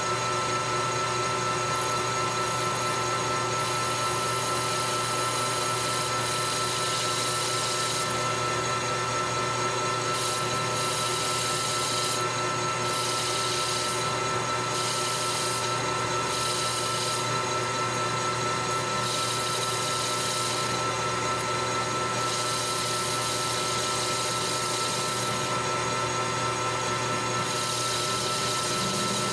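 Metal lathe turning a 316 stainless steel bar, a carbide tool cutting the corner of its end. The spindle hums with a steady whine, and the hiss of the cut comes and goes in stretches of a second or two as the tool feeds in.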